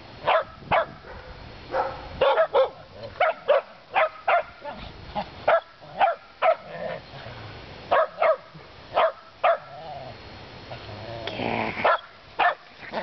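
Shetland sheepdog barking repeatedly in play: short, sharp, high barks in quick irregular bunches, with a longer drawn-out sound near the end.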